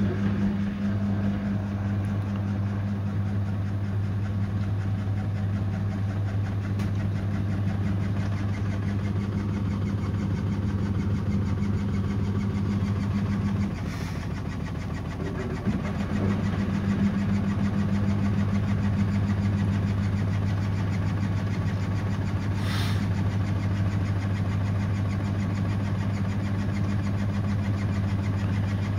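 Samsung front-loading washing machine running the prewash spin with an unbalanced load: a steady low hum that drops away for about two seconds midway, then picks up again. Two faint clicks can be heard.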